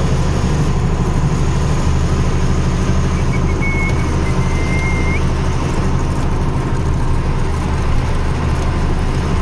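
Tata 3118 truck's diesel engine running steadily as a low drone, heard from inside the cab while the truck creeps along. A faint thin high tone sounds for about two seconds midway.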